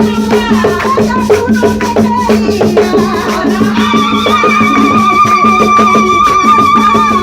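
A tuna ensemble playing: steady strummed and struck rhythm with rattling percussion, and from about three seconds in a single long held note with vibrato over it.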